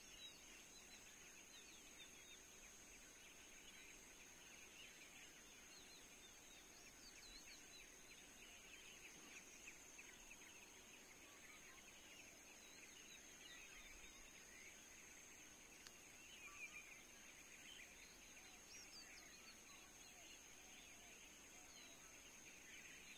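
Faint outdoor ambience: a dense chorus of small chirping calls over a steady high-pitched whine, typical of birds and insects in grassland.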